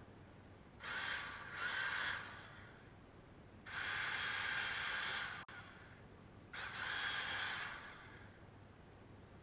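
A person breathing out hard in four noisy, hissing breaths: two in quick succession, a longer one in the middle that cuts off abruptly, and one more after a pause.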